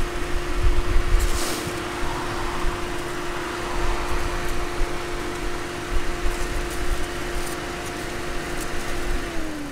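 A car's electric radiator cooling fan runs with a steady hum, then switches off and winds down in pitch near the end. The engine's low idle rumble sits underneath.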